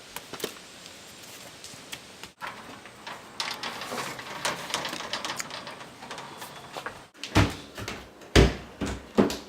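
Scattered clicks and knocks, with two heavy thumps near the end.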